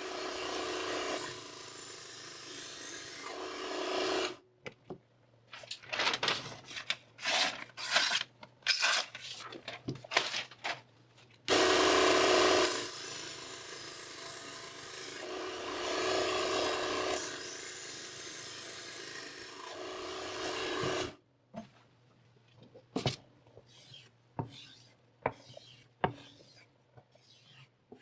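Knife blade being sharpened on a grinder: long stretches of steady grinding alternate with runs of short, separate scraping strokes of steel against the abrasive.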